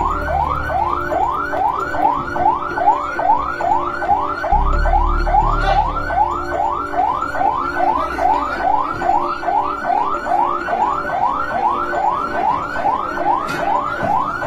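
Ambulance siren in a fast yelp: a pitch that sweeps upward, repeated about two and a half times a second without a break. A brief low rumble comes underneath about four to six seconds in.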